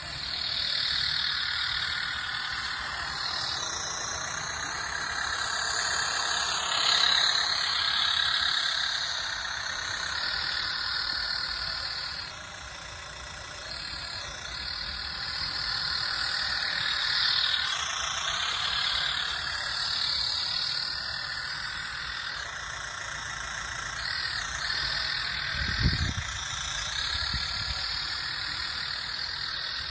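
Radio-controlled scale model tractor running steadily as it pushes through undergrowth, with a single low thump near the end.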